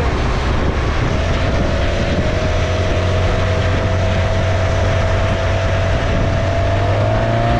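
Boat's exposed inboard engine running steadily under way across choppy water, with wind and water noise. A steady whine comes in about a second in and rises a little near the end.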